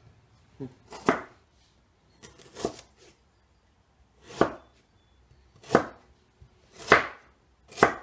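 Kitchen knife chopping a carrot on a wooden cutting board: about six slow, separate chops, roughly one every second or so.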